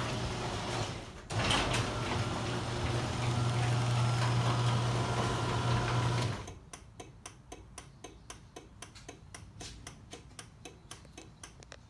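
LiftMaster 1/2 hp screw-drive garage door opener's motor running with a steady low hum. It cuts out briefly about a second in, as the door stops and reverses during a safety sensor test, then runs again and stops about six seconds in. After it stops, a fast series of regular clicks follows, about four a second.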